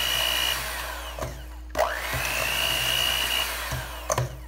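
Electric hand mixer beating crumbled hard-boiled egg yolks and butter that has not fully softened in a stainless steel bowl. It runs in short bursts: its whine cuts out about a second in, spins back up with a rising whine, and stops again near the end, with a few sharp clicks around the stops.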